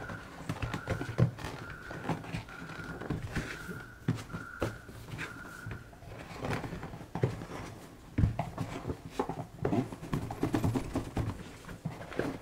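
Packaging being opened by hand: scattered clicks, taps and rustles of cardboard and plastic, with a few dull knocks. A short high tone repeats about once a second through the first half, then stops.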